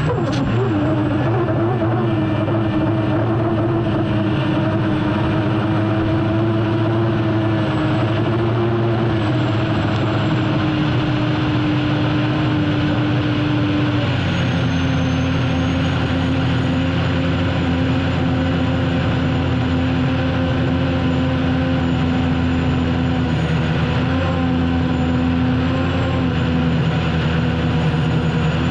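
Unlimited hydroplane's gas-turbine engine running hard at racing speed, heard onboard: a loud steady drone under a high thin turbine whine. The pitch drops a step about halfway through and wavers slightly near the end.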